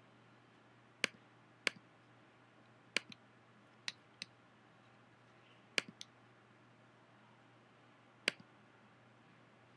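Computer mouse clicking: about ten short, sharp clicks at uneven intervals, some in quick pairs, over a faint steady low hum.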